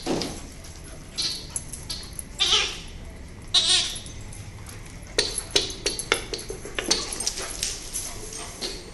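Two dogs, a golden retriever and a small scruffy dog, play-fighting on a hard floor: four short high-pitched cries about a second apart, then a quick run of clicks and scuffles about halfway through.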